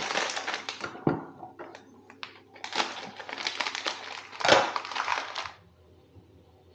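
Plastic food packaging crinkling and rustling as it is handled, with a few small clicks between bouts and the sharpest crackle about four and a half seconds in; it goes quiet near the end.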